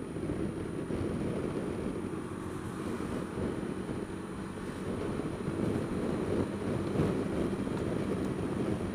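Wind buffeting the microphone of a Drift Ghost-S action camera on a moving Honda Dio scooter: a rough, steady low rumble. The scooter's engine runs faintly underneath.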